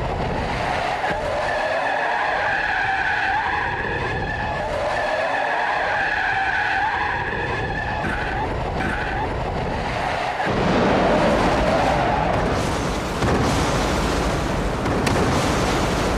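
Car tyres squealing in a long skid, a wavering screech. About ten seconds in it gives way to a louder, rougher noise of the car sliding across loose dirt.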